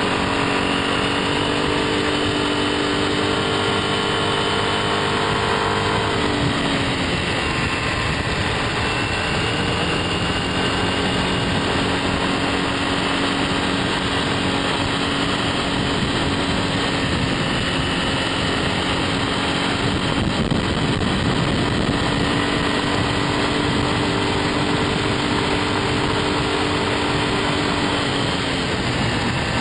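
Motor scooter engine running at road speed, heard over a steady rush of wind and road noise. The engine note falls about six seconds in, then holds steady.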